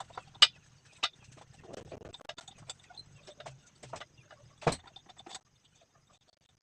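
Sharp clicks and knocks of hands and tools opening the air intake of a 2.5 hp Inco air compressor. The two loudest knocks come about half a second in and near five seconds, and the handling stops shortly after.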